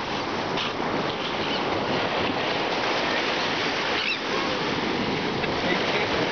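Steady rushing of ocean surf breaking on the beach.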